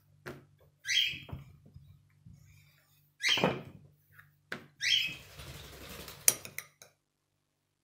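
Soft rustling and scraping on a paper-covered worktop as yeast dough is rolled flat with a wooden rolling pin and the thin sheet is lifted and laid back down, in several short strokes. A sharp knock comes about six seconds in.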